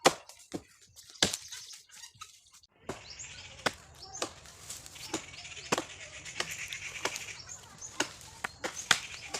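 Repeated sharp chopping strikes on wood, one every half second to a second, uneven in spacing. A steady low hum with a hiss above it comes in about three seconds in.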